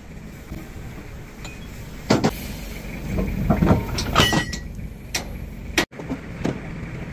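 Heavy steel clanks and knocks as the toothed sprocket ring of a Komatsu bulldozer's final drive is worked loose and slid off its hub. One clang about four seconds in rings on briefly. A steady low rumble sits under it all.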